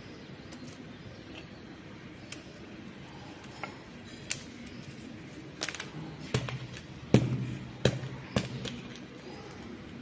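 Repotting handling noise: a few light clicks from a metal spoon and plastic cup, then a cluster of dull thumps and knocks in the second half as soil is pressed and patted down in the pots and the cup is handled.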